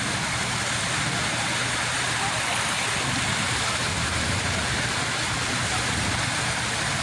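Sea waves breaking as a steady, unbroken rush of surf, with no single crash standing out.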